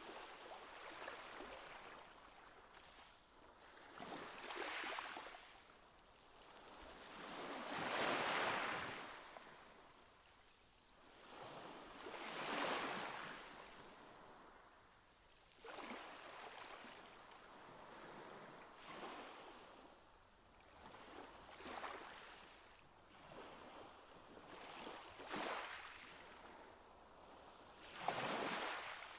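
Pool water washing and lapping against the concrete edge, a hushing noise that swells and fades in surges every three to four seconds.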